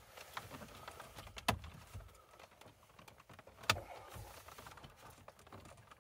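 Plastic dashboard trim and the centre-console audio control panel clicking and rattling as hands work them loose, with two sharp clicks, one about a second and a half in and one a little before four seconds.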